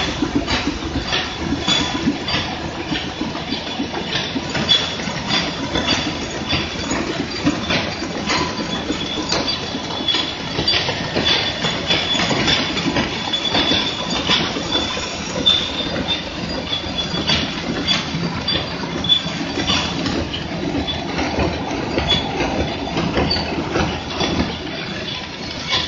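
Fully automatic airline cutlery packing machine running: a steady mechanical clatter with regular sharp clicks, about two to three a second, over a thin, steady high whine.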